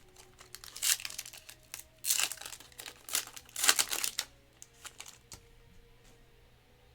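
A trading-card pack wrapper being torn open and crinkled by hand, in several loud bursts over a few seconds, then lighter handling clicks as the cards come out.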